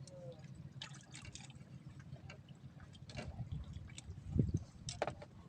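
Small splashes and drips of water with scattered light clicks, and one dull low thump about four and a half seconds in.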